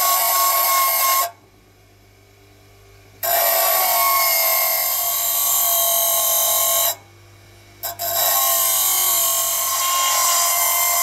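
Bench grinder's very coarse diamond wheel rough grinding the carbide of a brazed lathe tool bit: a loud high hiss with a few steady pitched tones. The grinding stops twice for a second or two, while a low hum carries on underneath.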